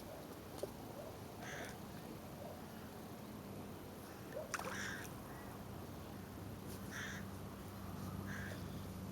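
Four short animal calls, a couple of seconds apart, over a faint steady low hum.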